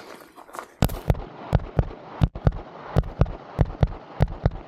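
Glock 34 9mm pistol firing rapidly in competition: about a dozen shots, many in quick pairs, the string starting just under a second in.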